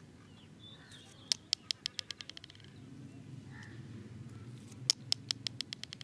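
Plastic toothbrush handle sprung in a rubber-band-bound plier trap, bent back and released twice: each release gives a sharp snap followed by a run of quicker, fading taps as it chatters to rest against the plier jaw.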